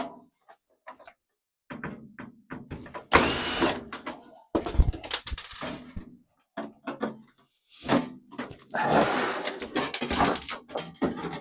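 Power drill-driver undoing screws from a microwave's sheet-metal casing. It runs briefly twice, once about three seconds in and again for longer near the end, with knocks and clatter of metal parts between the runs.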